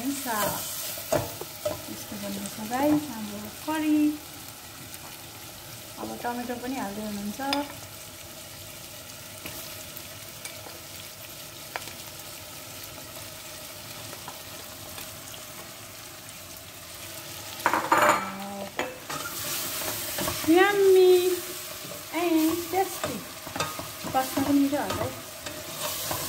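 Chicken pieces frying and sizzling in masala in a stainless steel pot, stirred with a spatula that scrapes against the pot. The stirring comes in the first several seconds and again through the last third; in between only the steady sizzle is heard.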